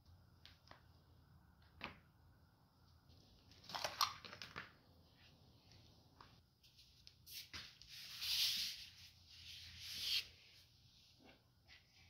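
Cardboard and paper being handled: a few light clicks, then rustling and scraping about four seconds in and again in a longer stretch from about seven and a half to ten seconds.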